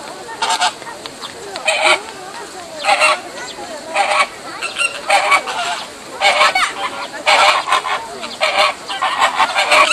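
A flock of American flamingos honking, goose-like calls repeated about once a second with several birds overlapping.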